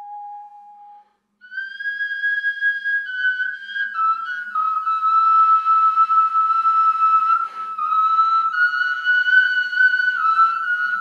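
Music: a slow, high whistling melody of long held notes that drift gently down and back up in pitch, after a short, lower steady tone in the first second.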